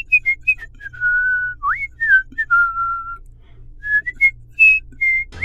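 A whistled tune over a faint low beat. It is made of short notes, several of which slide up into place, with two longer held notes in the middle and light clicks between the notes.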